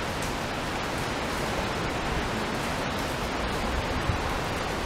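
Steady, even hiss of rain falling, with no distinct events.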